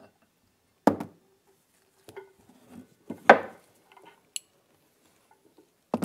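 Steel parts of a Mercedes GL driveshaft CV joint clinking as the inner race, cage and balls are worked out of the joint casing: a few separate sharp metallic knocks, the loudest about three seconds in, followed a second later by a short bright ring.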